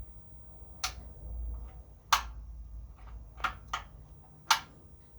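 DeLonghi radiator clicking: five sharp, irregularly spaced clicks over a faint low hum.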